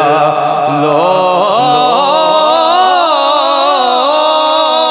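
A man singing a long, wavering melismatic phrase of a Punjabi devotional kalam (naat) into a microphone.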